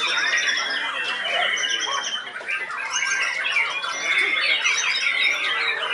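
Seven-month-old white-rumped shama (murai batu) singing a dense, rapid stream of whistled glides, trills and harsh notes: the shower of song bursts that contest keepers call 'tembakan'. Other caged songbirds sing over it.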